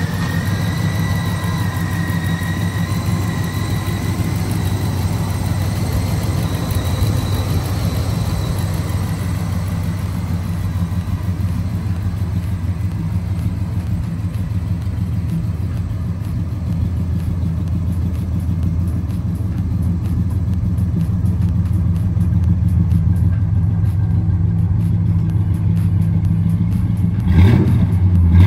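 Oldsmobile 350 V8 idling steadily just after starting, with a faint high whine that fades out over the first several seconds. Near the end the engine is revved briefly.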